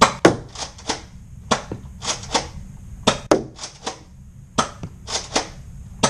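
Nerf Surgefire pump-action dart blaster being repeatedly primed and fired: quick clusters of sharp plastic clacks from the pump slide and the shot, coming every half second to a second.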